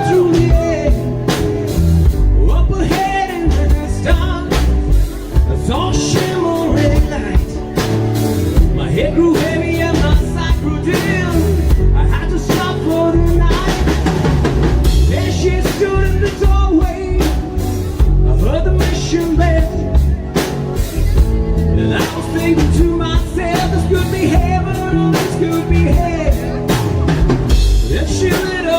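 Live rock band playing amplified music: a singer over a drum kit and sustained instrument chords, with steady drum hits keeping the beat.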